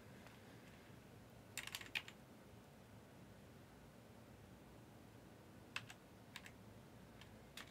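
Faint computer keyboard typing: a short run of key clicks about a second and a half in, then a few scattered clicks near the end, over near-silent room tone.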